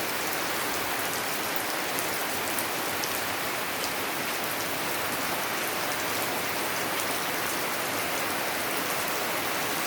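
Steady rain falling, with a constant hiss and many small drop ticks hitting surfaces.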